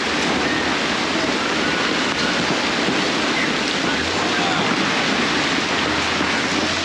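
Hail and heavy rain pelting down in a dense, steady hiss. A low rumble of thunder comes in about four seconds in.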